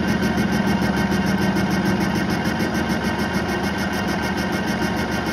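Metal lathe running, its chuck spinning a rectangular workpiece while the cutting tool faces it: a steady mechanical hum with a fast, even pulsing.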